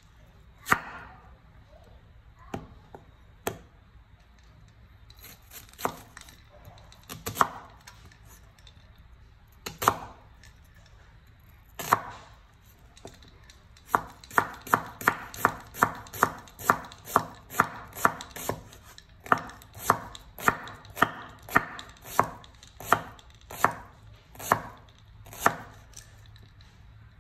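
Cleaver chopping a peeled onion on a wooden cutting board. A few single knocks come through the first half, then a steady run of chops follows at about two a second from about halfway through.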